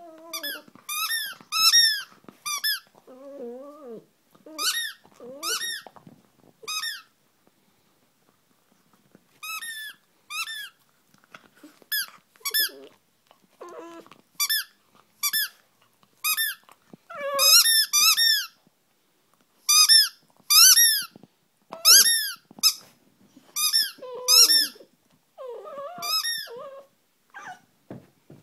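Rubber squeaky ball toy squeaking over and over as a Springer Spaniel puppy chews it. The squeaks are short and rise then fall in pitch, coming in runs of two to five with pauses between.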